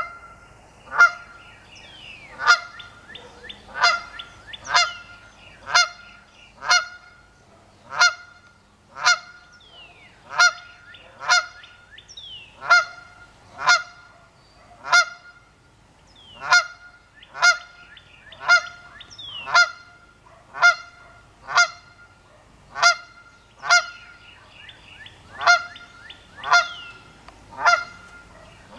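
A Canada goose honking over and over, about one short, loud honk a second with only brief pauses. It is a lone goose calling on and on, which the uploader takes for mourning.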